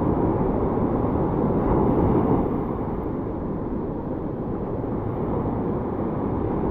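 Surf breaking and washing up a sandy beach, mixed with wind rumbling on the microphone.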